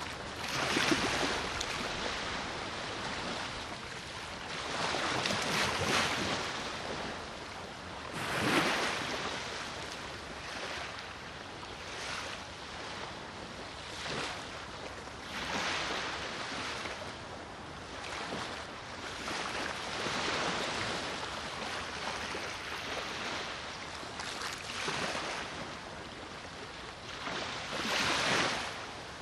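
Black Sea surf: small waves breaking and washing on the shore every few seconds, over a steady wind.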